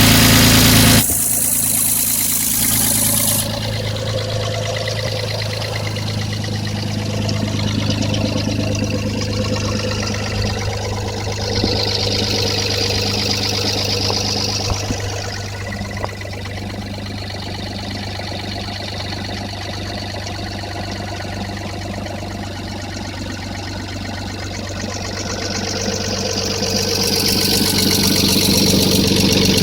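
Toyota 1FZ-FE 4.5-litre straight-six engine running steadily near idle, with the valve tapping from the top end that the owner is recording. A loud burst of noise in the first second gives way to the steady engine sound, which swells a little near the end.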